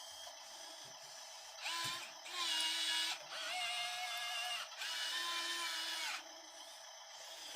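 Small electric motors of a 1:50 scale RC construction model whirring in three bursts of about a second and a half each, the whine's pitch changing between bursts.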